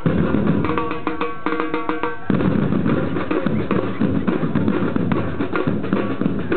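Live samba drum band playing a fast rhythm on large surdo-type bass drums and other drums. About two seconds in, a lighter pattern with ringing accents gives way to the full band playing louder and denser.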